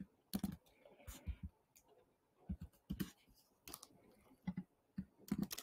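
Scattered keystrokes and clicks on a computer keyboard, single taps and short pairs with pauses between them, about nine in all.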